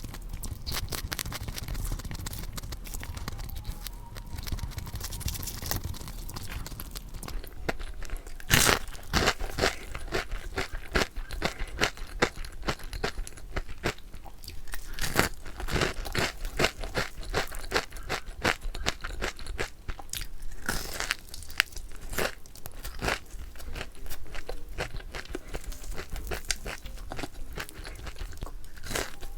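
Crispy fried chicken being bitten and chewed close to the microphone: a continuous run of crunches, some bites much louder than the rest.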